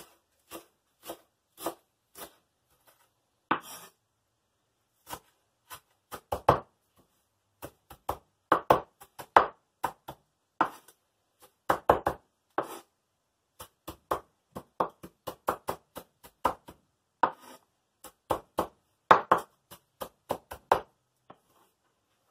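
Knife chopping fresh cilantro on a wooden cutting board: sharp knocks of the blade on the board in uneven runs, stopping shortly before the end.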